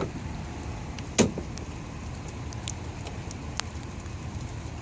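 Car engine idling with a steady low rumble, a sharp click about a second in and a few fainter ticks after it.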